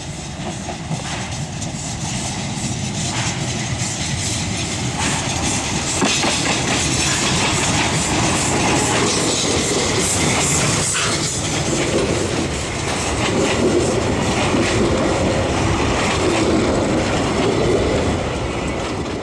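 Px29 narrow-gauge steam locomotive working under steam with rhythmic exhaust beats, growing louder as it approaches and passes close by. Its carriages follow, wheels clattering over the rail joints.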